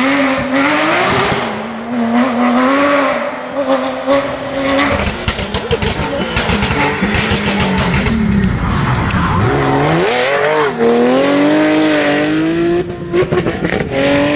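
Porsche rally car's flat-six engine pulling hard. About eight seconds in the pitch drops steeply as the car brakes and shifts down, then climbs again as it accelerates away. A run of crackling comes a few seconds before the drop.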